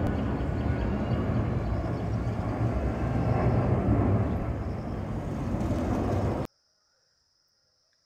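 Jet airliner passing overhead: a steady low rumble of its engines that cuts off abruptly about six and a half seconds in, leaving near silence with a faint high hiss.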